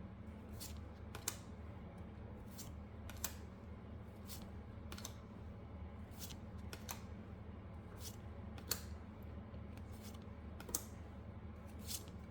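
Pokémon trading cards from a booster pack being handled and flipped through one by one, giving irregular sharp clicks and snaps of card edges about once a second, over a faint low hum.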